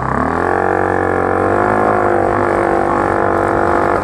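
Grizzly 200cc ATV engine revving up over about half a second and then held at high revs with a steady droning pitch, stopping abruptly at the end.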